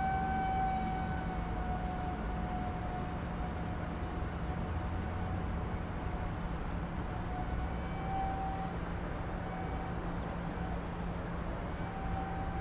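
Small electric RC airplane's motor and 6-inch propeller whining steadily in flight. The pitch rises a little at the start, and the whine swells briefly about eight seconds in and again near the end as the throttle is worked. Low wind rumble on the microphone runs underneath.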